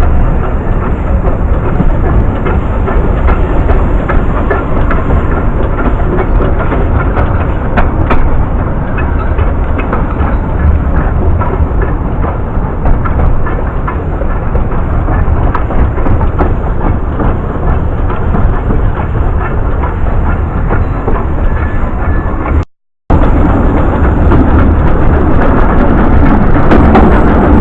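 Welsh Highland Railway narrow-gauge train running, a loud steady rumble of wheels on rails with scattered faint clicks. It cuts out abruptly for a moment near the end.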